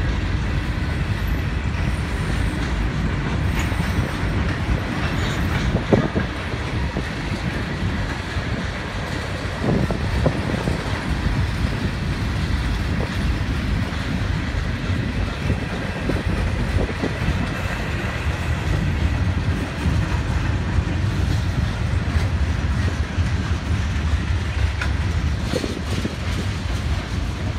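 Freight cars of a manifest train rolling steadily past: covered hoppers, then tank cars. A low rumble of wheels on rail carries scattered clicks and knocks, the sharpest about six seconds in.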